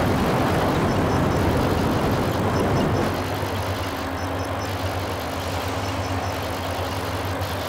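Harsh electronic noise music from a laptop: a dense wall of rumbling, hissing noise that thins about three seconds in to a steadier drone with a low hum.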